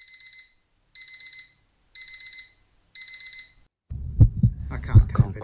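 Digital alarm clock going off: four short bursts of rapid high beeps, one burst a second. About four seconds in, a low hum and heavy paired thuds like a heartbeat take over.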